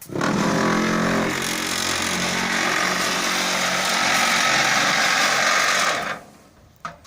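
Cinder-block machine's vibrator running, shaking the steel mold as it is lifted off four freshly pressed blocks of granite screenings. The loud, steady vibration stops about six seconds in, followed by a short click near the end.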